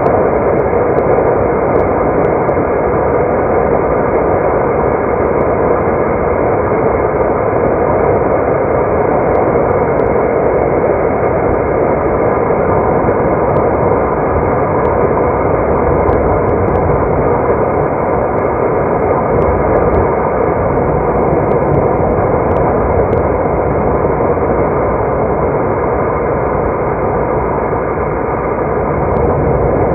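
Steady road and engine noise of a car being driven, heard from inside the cabin as an even rumble and hiss with no change in pitch.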